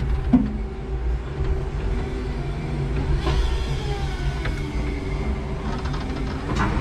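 5-ton electric forklift running, a steady hum and whine from its electric motors. A brief knock comes just after the start and a few clicks near the end.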